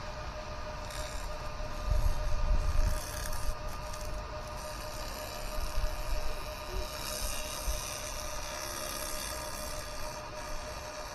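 A 200 W pulsed laser cleaning machine is stripping the surface of a wooden chair back. It makes a high hiss that comes and goes as the beam scans, over a steady electrical hum. A low rumble on the microphone is loudest about two seconds in.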